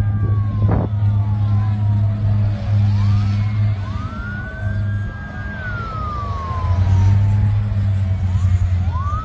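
Emergency vehicle sirens wailing, several overlapping, each rising, holding and falling slowly over a few seconds. Under them runs a steady low drone.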